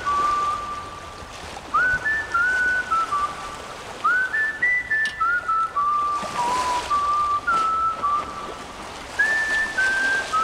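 A whistled melody in background music: short phrases of held notes, each opening with a quick upward slide and then stepping down in pitch, over a soft steady hiss.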